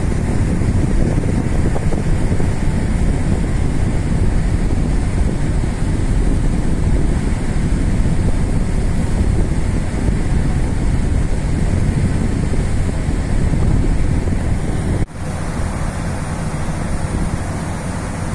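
Steady wind noise on the microphone on the open deck of a moving ferry, a low, even rush. It breaks off abruptly about fifteen seconds in and carries on slightly quieter.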